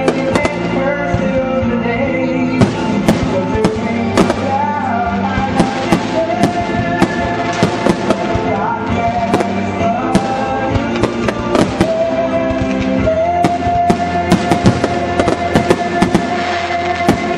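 Aerial fireworks shells bursting in a rapid run of sharp bangs that come thicker near the end, over continuous music.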